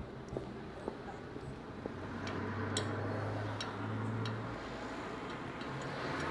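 Sound recording played back through the room's speaker: a low steady hum over a hiss, with a few light clicks. The hum drops out about four and a half seconds in.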